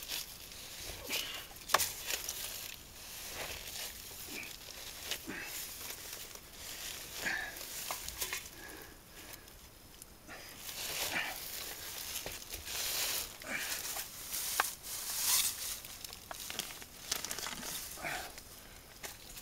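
Dry leaves and debris crackling and rustling in irregular bursts as someone moves and handles things on the floor of a crawl space, with scattered small clicks.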